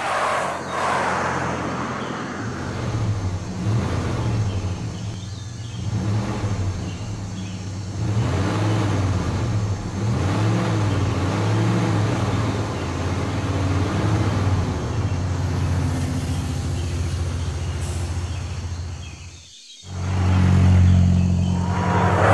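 Cartoon car engine sound effects: engines running steadily, with the revs rising and falling. The sound cuts out for a moment near the end, then comes back louder with a rush of a vehicle passing.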